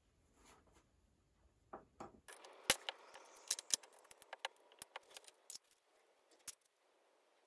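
Sharp clicks and clinks from a compact trim router and its parts being handled while a 12 mm flush-trim bit is fitted into its collet. The clicks come in quick succession from about two and a half seconds in and thin out near the end. The router is not running.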